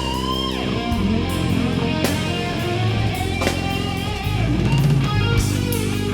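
Rock music with distorted electric guitar and drums.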